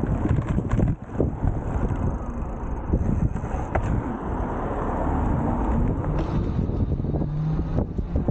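Wind buffeting the microphone while riding an electric bike, with rumbling tyre and road noise. A faint low hum comes in after about six seconds.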